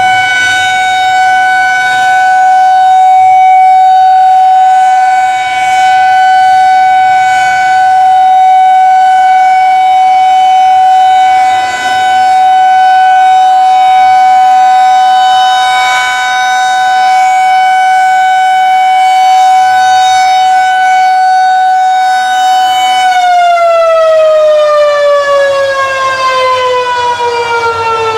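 Federal Signal 2001-DC Roundback rotating electromechanical warning siren sounding one steady, loud tone, its level swelling and dipping slightly as the rotating head sweeps past. About five seconds before the end the siren winds down, its pitch falling steadily as the rotor slows.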